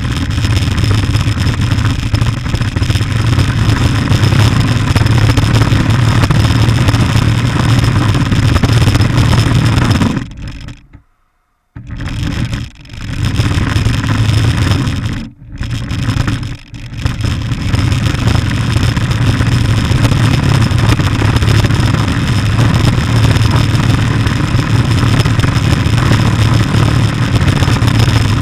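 Radio-controlled car running and driving, a loud rough rumble with a steady high whine over it, cutting out abruptly for about a second near the middle and dipping twice more soon after.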